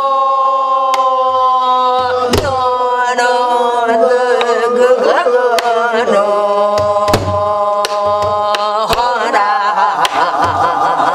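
A woman singing gueum, Korean vocal mouth-music in wordless syllables, with long held notes that slide and bend in pitch. She beats the rhythm on a soribuk barrel drum, with sharp stick strokes every second or two.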